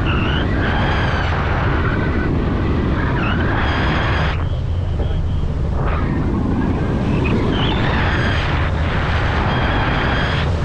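Steady wind rushing over the microphone of a hang glider's wing-mounted camera in flight, a heavy low rumble throughout. Faint high-pitched sounds come and go a few times over the top.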